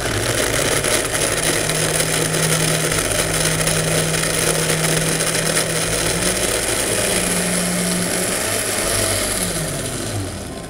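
Countertop blender motor running at full speed, grinding hard soaked maize kernels in plenty of water. It switches on at once, its hum rises a little about two-thirds of the way in, then it winds down with a falling pitch near the end.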